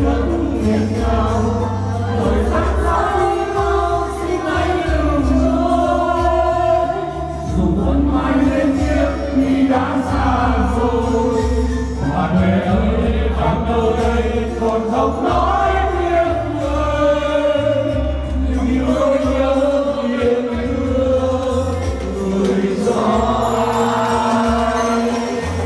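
A mixed group of men and women singing a song together into microphones, over amplified backing music with a continuous bass line.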